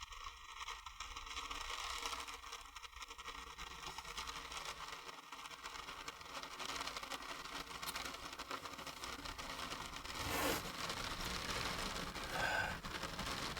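Rain pattering steadily on a campervan roof, heard from inside, with a couple of brief louder rustles near the end.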